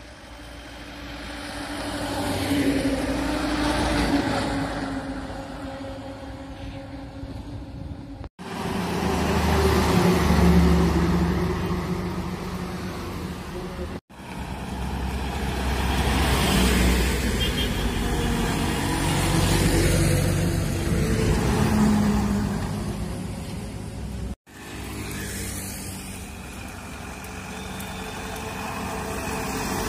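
Tata diesel lorries passing one after another: each engine drone and tyre noise swells as a truck approaches and fades as it goes by. The sound cuts off abruptly three times between clips.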